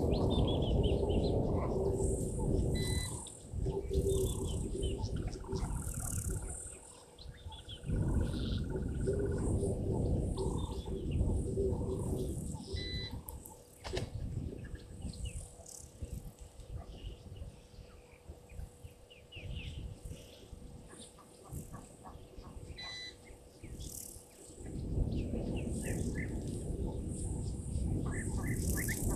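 Natural bush ambience: many small birds chirping and insects calling. Stretches of low rumbling noise come and go, fading out around the middle and returning near the end.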